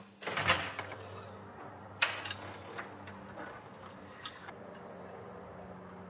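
Handling noises at a wooden door while a smart lock's outside keypad is fitted: a brief scuffle, a sharp knock about two seconds in, then a few light clicks.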